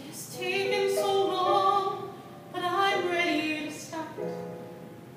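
A woman sings a slow ballad into a microphone in two long phrases of held notes, with electric keyboard accompaniment. A held keyboard chord fades near the end.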